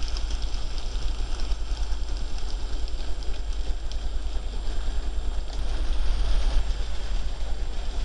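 N-scale model train running past on the track: its small motor and wheels make a steady mechanical whirr with rapid light clicking, over a constant low hum.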